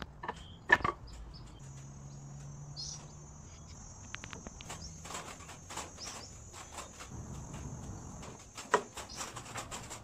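Wooden boards and metal clamps knocking and clicking as a glued-up panel is set into pipe clamps and bar clamps, with a sharper knock under a second in and another near the end. A steady high-pitched whine runs underneath from about two seconds in.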